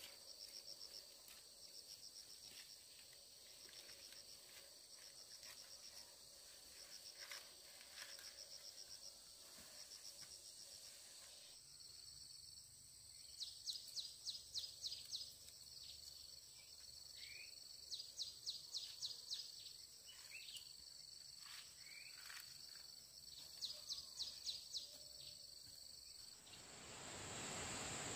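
Insects chirping outdoors in repeated short trains of quick, high pulses over a steady high-pitched insect drone. A rush of noise swells up near the end.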